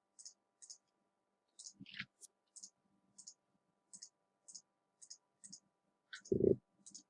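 Faint, short high clicks, about two a second, with a single louder dull thump near the end.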